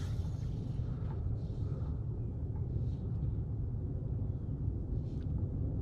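Low steady rumble of wind on the microphone, with a few faint brief swishes.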